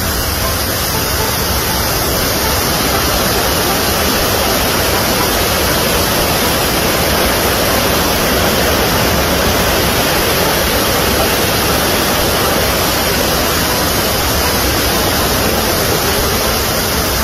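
Loud, steady rush of churning whitewater rapids close by, a continuous roar of falling and foaming water.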